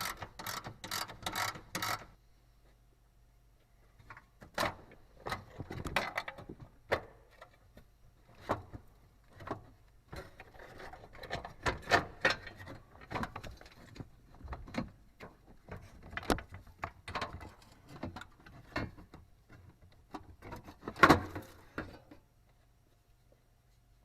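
Hand ratchet clicking in a quick even run as it turns a bolt holding the pickup's battery tray. After a short pause come irregular metallic clinks and knocks of tools and the tray being worked loose, with one louder knock near the end.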